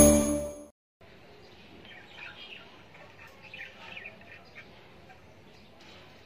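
Intro music cuts off within the first second. Then faint bird chirps in the background, clustered around two to four seconds in.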